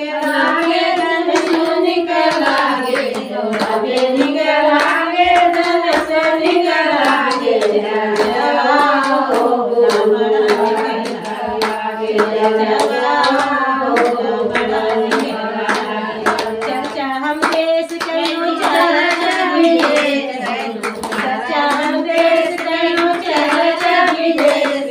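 A woman singing a Shiv charcha bhajan, a Hindu devotional song to Shiva, into a microphone, with a group clapping their hands in time throughout.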